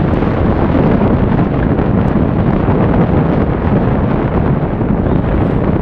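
Loud, steady wind buffeting on the microphone aboard a small sailing yacht under sail, mixed with the rush of water along the hull.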